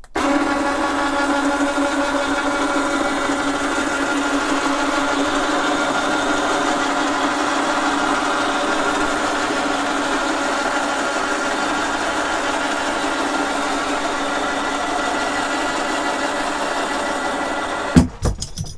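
Rhino 3000 lb 12-volt electric winch running steadily as it powers out its synthetic rope, the motor and gearbox making a constant whine at a steady pitch. It starts abruptly and cuts off near the end with a few clicks.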